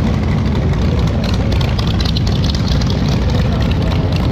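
Loud motorcycle engines running, a deep steady exhaust rumble with a rapid crackle over it from about a second in.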